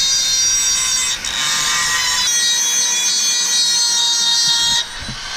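Dremel rotary tool with a small sharpening stone spinning at high speed against the edge of a wheel rim, a steady high-pitched whine as it grinds out curb rash. The whine dips briefly about a second in, shifts in pitch a little after two seconds, and cuts off near the end.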